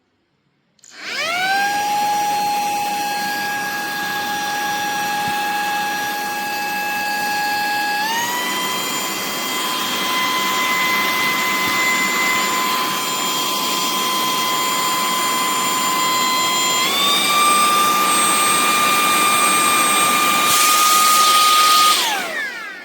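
Cordless handheld vacuum cleaner (Ludunbuy, 3-speed) switched on, its motor spinning up to a high whine over a rush of air. The whine steps up in pitch twice as it is switched through its three speeds. Near the end it is switched off and winds down with a falling whine.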